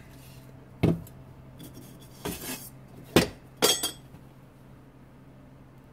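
Aluminium angle-bracket frame clinking and knocking against itself and the bench as it is handled and set down. There are four or five short metallic clinks in the first four seconds, the sharpest about three seconds in.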